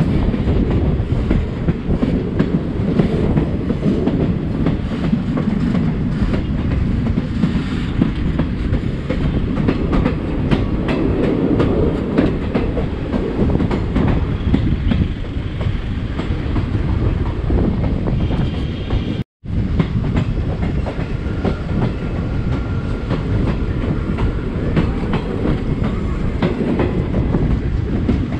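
Passenger train running along the track: a steady heavy rumble with the wheels clattering over rail joints. The sound cuts out completely for a moment about two-thirds of the way through, then carries on unchanged.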